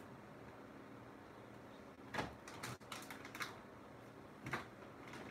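Irregular clicks and knocks of kitchen utensils and items being handled on a counter, starting about two seconds in, in a few short clusters.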